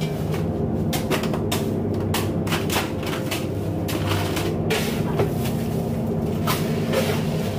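A fishing boat's engine hums steadily underneath a run of short scrapes, knocks and clatters from crushed ice and plastic fish crates being handled in the ice hold.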